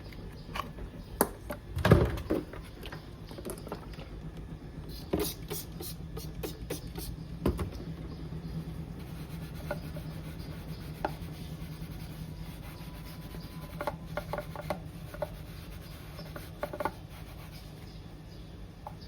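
Handling sounds: scattered knocks, clicks and rubbing, with one loud knock about two seconds in, over a steady low hum that starts about four seconds in.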